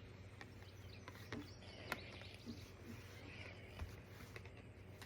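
Quiet room tone: a low steady hum with a few faint clicks.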